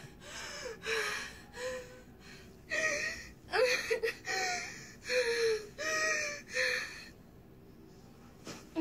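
A girl's panicked gasping breaths, each with a short high whimper, coming about every half second and stopping about seven seconds in.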